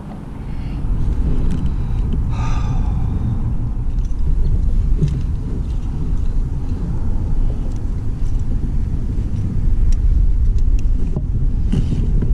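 Wind buffeting the microphone as a loud, choppy low rumble that gets louder about a second in. A few light clicks and a brief higher-pitched sound about two seconds in come through over it.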